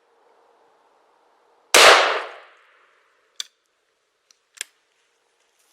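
A single shotgun blast from an old Harrington & Richardson Bay State 12 gauge firing Federal 7½ birdshot, about two seconds in, its ring fading over about a second. Two short sharp clicks follow, a little over a second apart.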